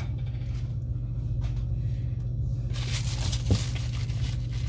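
A steady low hum with two faint short knocks, the louder one about three and a half seconds in, and a light hiss near the end.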